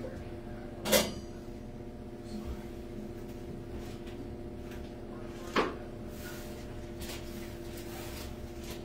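Two sharp knocks about four and a half seconds apart, the first the louder, over a steady low hum.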